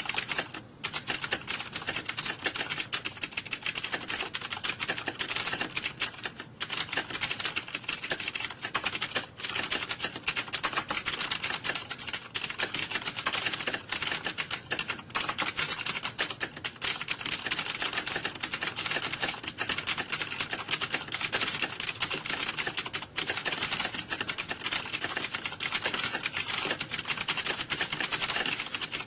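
Many computer keyboards being typed on at once, a dense, continuous clatter of keystrokes with no pauses, as in a hall full of candidates taking a typing test.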